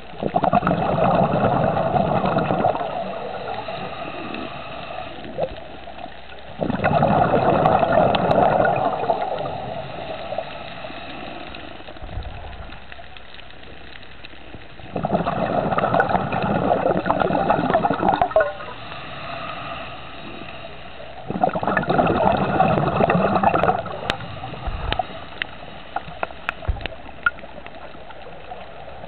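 Scuba regulator exhaust bubbles gurgling underwater as the diver breathes out. The exhalations come in four bursts of about three seconds each, roughly every six or seven seconds, with quieter breathing between.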